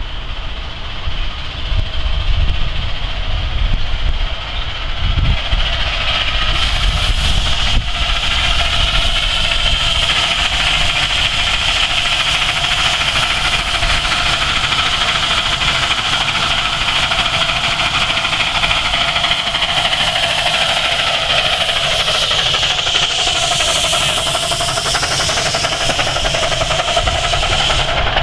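A 7 1/4 inch gauge live-steam K36 2-8-2 locomotive working hard up a steep grade with a very long, heavy train, its exhaust beating and steam hissing over the rumble of the carriages. Shifting high-pitched tones rise and fall near the end.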